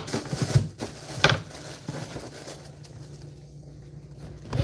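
Tissue paper crinkling as a wallet is unwrapped by hand, with a few sharp crackles in the first second or so, then only quiet handling.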